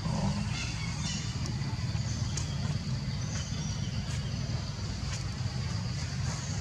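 A steady low rumble, like a motor vehicle running nearby, with a few faint high chirps and ticks over it.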